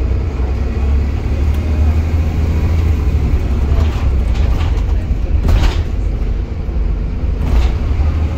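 Volvo B7TL double-decker bus's six-cylinder diesel engine running at speed, heard from inside the lower deck as a steady low drone mixed with road noise. A few brief swishes come in about halfway through and again near the end.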